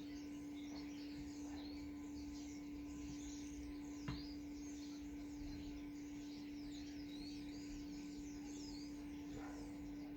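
Small birds chirping and twittering over a steady low hum, with a single sharp click about four seconds in.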